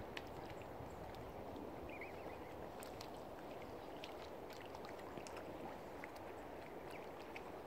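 Lakeshore ambience: a steady wash of lapping water with scattered small clicks and splashes, and one brief faint chirp about two seconds in.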